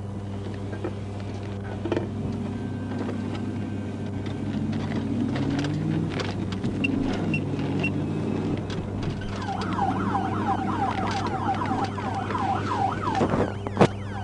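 Police cruiser's siren in a fast yelp, starting about nine and a half seconds in over the steady hum of the car accelerating in pursuit. There is a sharp knock just before the end.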